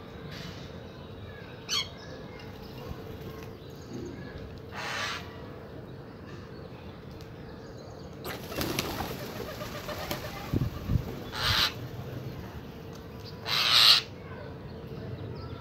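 Wings of crows, mynas and pigeons flapping in short bursts as birds take off and land, about five flurries, the loudest near the end.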